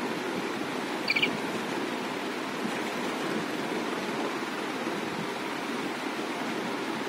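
Steady rushing background noise, with three quick high chirps about a second in.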